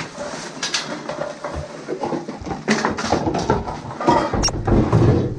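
Rubbish and a plastic cabinet panel being handled: irregular rustling, scraping and light knocks, with heavier knocks near the end.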